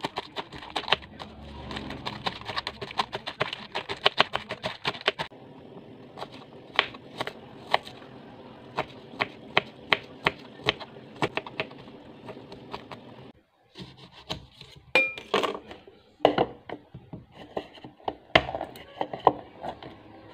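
Knife chopping salad vegetables on a cutting board: quick, close-spaced strokes for the first few seconds, then slower single cuts. There is a brief break about two-thirds of the way through, after which a few louder knocks follow.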